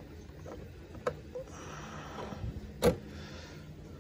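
Painted polycarbonate RC truggy body being pressed down onto the chassis: light plastic rustling with a few sharp clicks and knocks, the loudest near three seconds in.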